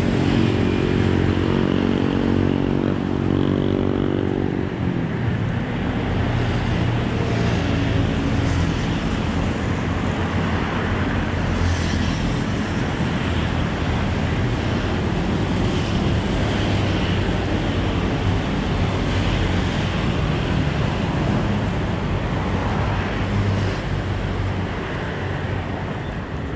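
Road traffic: a vehicle engine hums at a steady pitch for the first few seconds, then drops away in pitch about four to five seconds in, leaving a steady rush of traffic noise with a low hum.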